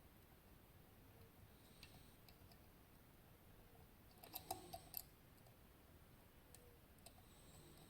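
Faint metallic clicking of lock picks working inside a West 955 high-pin-count pin-tumbler lock. A quick cluster of louder clicks comes about four to five seconds in.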